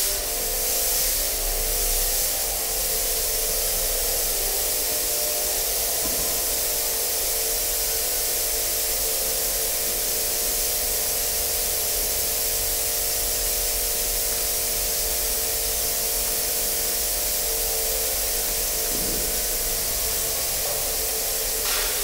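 Fog machines jetting smoke: a steady spraying hiss. Underneath is a steady hum of several held tones.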